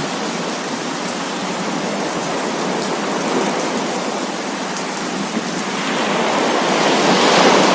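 Steady rain falling together with coastal sea waves. About six seconds in, a wave swells up louder.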